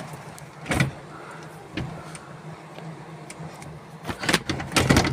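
Several knocks and rustles against the interior trim inside the car's cabin, the loudest cluster near the end, over a steady low hum.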